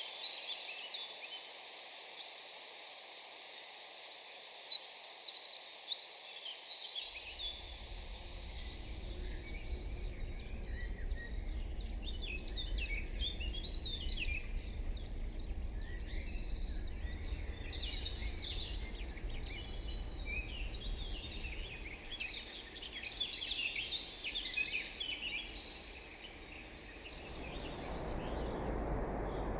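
Forest ambience: many birds chirping and calling over a steady high-pitched drone. A low rumble comes in about a quarter of the way through, and a rush of wind swells near the end.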